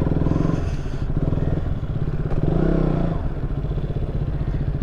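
KTM Duke 200's single-cylinder engine running under the rider at low speed, with a brief rise and fall in pitch a little past the middle.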